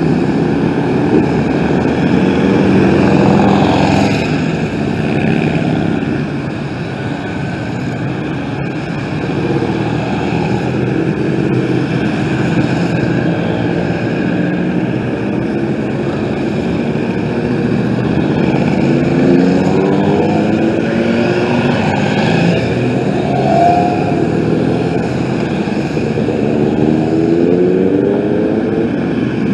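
A long line of motorcycles riding past one after another, their engines running continuously. Now and then an engine rises in pitch as a bike accelerates past.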